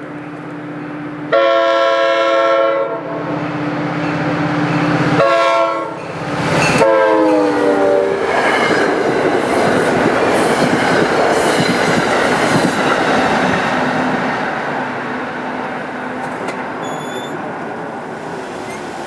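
Diesel locomotive's multi-chime air horn: a long blast, a short one, then a third whose chord drops in pitch as the train passes close at speed. The loud rumble and wheel clatter of the passing train follows and slowly fades.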